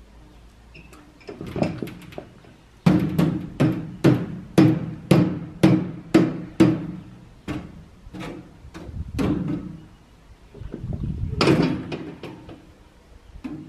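A hand tool striking something hard over and over, with a short ringing note on each blow: a quick run of about two strikes a second for several seconds, then a few slower strikes and a longer scraping rattle near the end.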